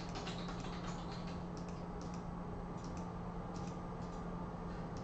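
Computer mouse clicking a few times, some clicks in quick pairs, over a steady low electrical hum.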